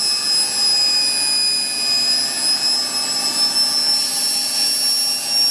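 A 220 V universal motor running with no load off an old Hodson and Gault 110 V DC generator, giving a steady high whine with several steady lower tones under it. The motor's bearing is dying.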